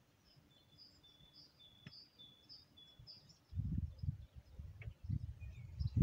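A bird singing a quick repeated two-note phrase, a higher note and a lower note alternating about twice a second, which stops about three seconds in. From there on, louder low rumbling bursts take over.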